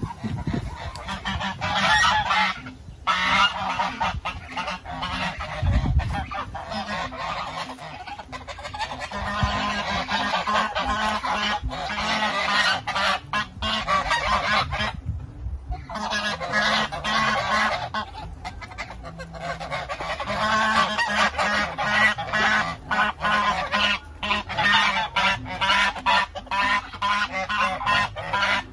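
A flock of domestic geese honking almost without pause, many calls overlapping, at feeding time around their trough, with brief lulls about three seconds in and about halfway through. A low thud comes about six seconds in.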